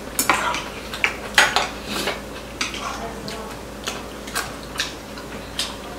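Chopsticks and spoons clicking and scraping against ceramic rice bowls and plates while eating: a string of sharp, irregular clinks, the loudest about a second and a half in.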